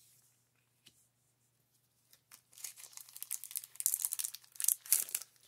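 A couple of faint taps of cards being set down, then from about two and a half seconds in, crackling of a foil Pokémon booster pack wrapper being handled.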